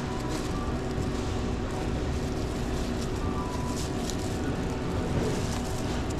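Steady low mechanical rumble and hum, with faint clicks and a few short high tones.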